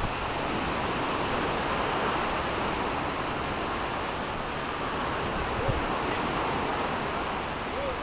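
Steady rush of sea surf and wind, with a few faint, distant voices.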